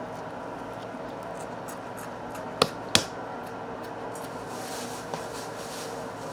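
Slime being stretched and handled, with faint crackles and two sharp clicks about two and a half and three seconds in, over a steady room hum.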